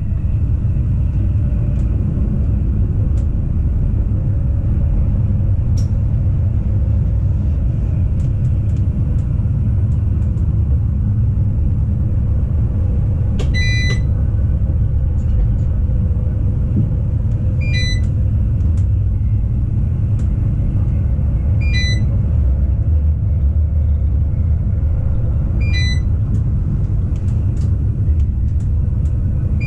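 Rhaetian Railway ABe 8/12 electric train running on the track with a steady low rumble. From about halfway through, a short electronic beep sounds about every four seconds.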